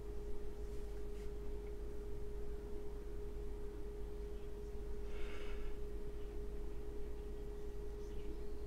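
A steady pure tone held at one pitch throughout, over faint background noise, with a soft brief hiss about five seconds in.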